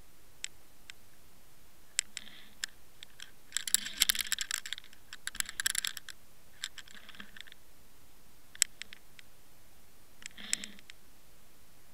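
Scattered sharp clicks and two longer spells of dense crackling, about three to six seconds in and again near the end, picked up underwater by the camera.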